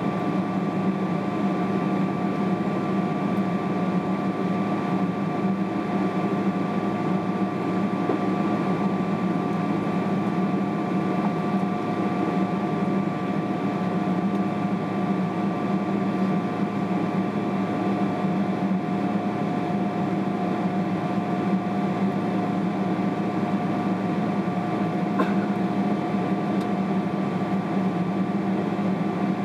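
Steady cabin drone inside a Boeing 777-300ER holding on the ground with its engines at idle: a low hum with two steady whining tones above it, unchanging throughout.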